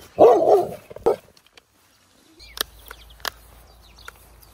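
Chocolate Labrador barking, a quick pair of barks then one more about a second in. Faint bird chirps follow in the second half.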